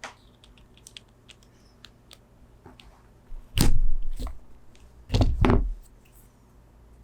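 Hand work on a keyboard's wiring: light scattered clicks, then two louder crunching bursts about a second and a half apart.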